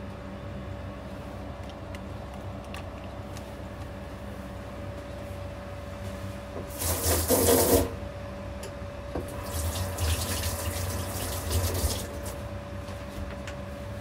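Water running from a kitchen tap: a short loud burst about seven seconds in, then a longer run from about nine and a half to twelve seconds, over a steady low hum.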